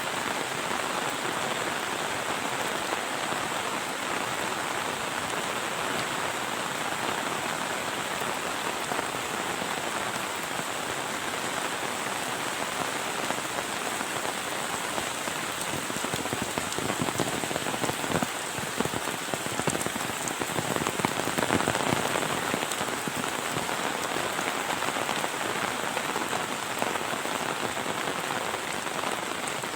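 Heavy rain falling steadily, with a stretch of louder, closer splashing drops in the middle.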